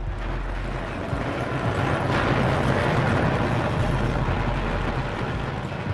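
Rumbling roar of an apartment block collapsing, floors pancaking, in an earthquake: a loud, deep noise that swells about two seconds in and eases near the end.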